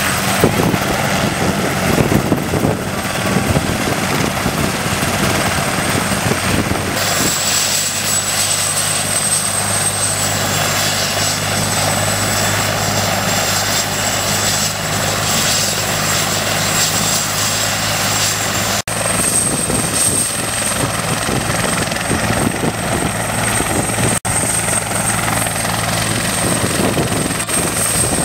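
Turbine helicopters running with rotors turning, in several cut-together shots: first a Hughes 500 on the ground, with rotor chop under a high turbine whistle. Near the end a Bell 412EP idles on the ground with its main rotor spinning, its turbines giving a steady high whine.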